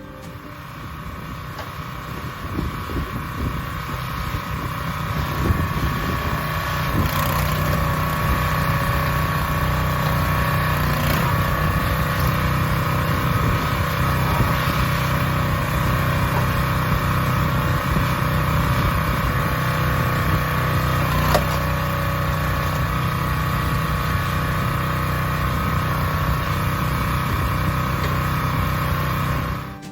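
Predator 212cc single-cylinder gas engine running steadily, driving the hydraulic pump of a 20-ton log splitter; it gets louder over the first several seconds. A few sharp cracks stand out over it, typical of logs splitting on the wedge.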